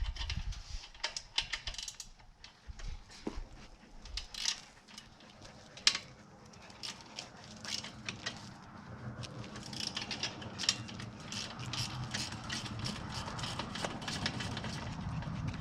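Irregular ratchet-like clicking and metal rattling as gate hinge hardware is fitted and tightened, with a steadier low noise building up about halfway through.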